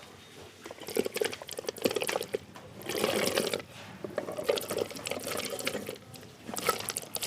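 Water splashing in a pot of boiling water in several separate bursts, the longest about three seconds in, as pieces of tapioca are put in to cook.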